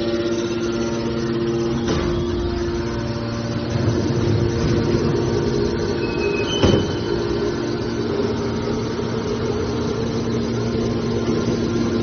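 Hydraulic metal baler's electric motor and hydraulic pump running with a steady hum. There is a knock about two seconds in and a louder, sharper one a little past the middle.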